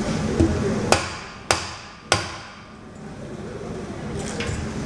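A light knock, then three sharp metal knocks about half a second apart, each with a brief ring, from work on a bush press tool fitted to a car's rear trailing arm.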